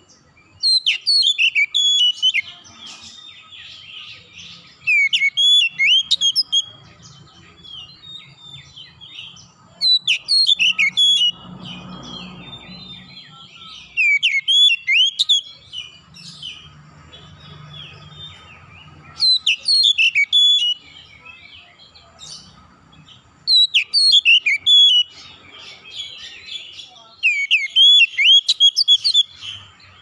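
Male oriental magpie-robin (kacer) singing: loud phrases of quick, sweeping whistled notes about every four to five seconds, with softer twittering between them.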